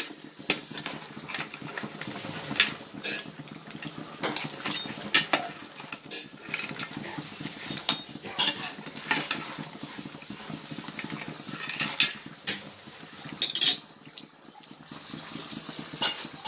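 Metal ladle stirring a pot of crab curry, clinking and scraping against the metal pot at irregular intervals, with a few louder knocks near the end.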